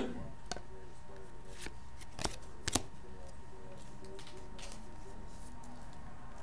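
Hockey trading cards being handled: cards flicked and slid against each other and set down on a glass tabletop, giving a few sharp light clicks in the first three seconds and fainter rustles after.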